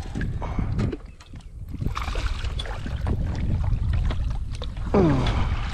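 Wind rumbling on the microphone over small knocks and water sounds from a fishing kayak. About five seconds in comes a short falling tone.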